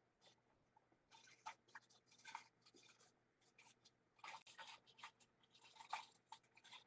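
Faint, irregular rustling, scraping and light knocks of small objects being handled and moved about, as someone rummages through stored things.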